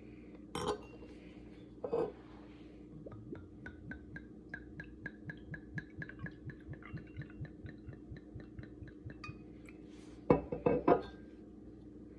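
Mead poured from a bottle into a crystal wine glass, glugging quickly at about four or five glugs a second for roughly six seconds. Glass clinks a couple of times before the pour, and there is a louder cluster of glass knocks and clinks about ten seconds in.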